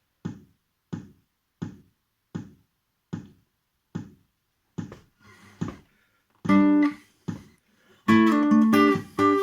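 Metronome ticking slowly, a little more than once a second; about six and a half seconds in a guitar joins, playing a picked riff over it in time.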